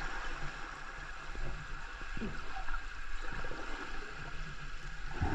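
Muffled underwater sound of a waterfall's plunge pool: a steady low rush of falling water heard below the surface, with faint gurgles and scattered small clicks.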